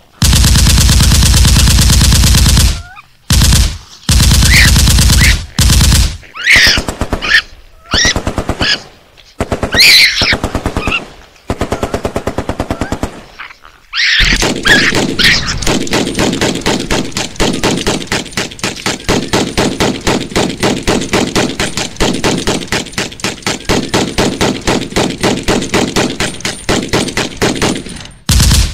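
Recorded raccoon growling and chittering played back very loud: a harsh, rapid pulsing sound broken by short high squeals in the middle, then after a brief pause a long unbroken run of fast rasping pulses.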